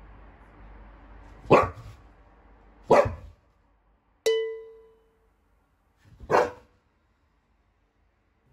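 An Akita barking three single woofs: two about a second and a half apart, then a third after a longer pause. Between the second and third bark a single ringing ping fades out.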